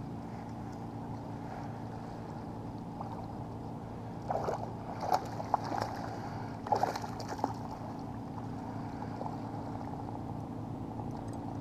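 A hooked smallmouth bass splashing and thrashing at the water surface beside a kayak, in several sharp splashes between about four and seven and a half seconds in. A steady low hum runs underneath.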